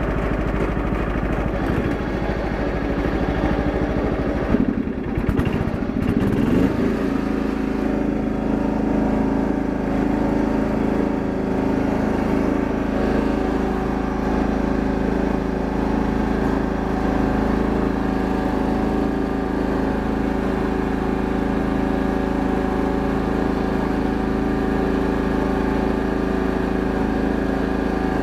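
John Deere 170 lawn tractor's engine running under way. About four and a half seconds in there is a brief jolt and the engine note climbs, then holds steady.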